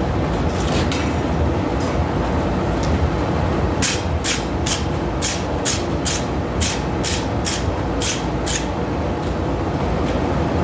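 Hand hammer striking hot steel flat bar on an anvil, closing up the sides of a tapered leaf stem: a run of about ten sharp, ringing blows, roughly two a second, starting about four seconds in, after a few lighter taps. Under it runs a steady rushing background noise.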